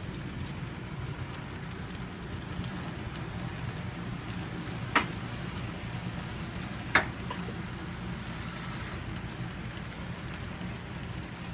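HO scale model freight train rolling past, a steady low rumble of its wheels on the track. Two sharp clicks come about two seconds apart near the middle.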